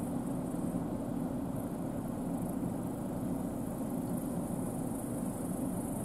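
New Holland CR10.90 combine harvester working and unloading grain on the move, heard from a distance as a steady machine drone with a high hiss above it, a tractor running alongside.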